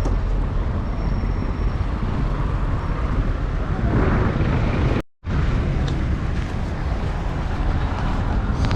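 Steady road traffic noise, a low rumble of passing vehicles. The sound cuts out completely for a moment about five seconds in.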